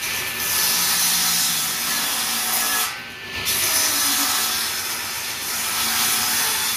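Table-mounted circular saw cutting wood, a loud steady noise that eases briefly about three seconds in.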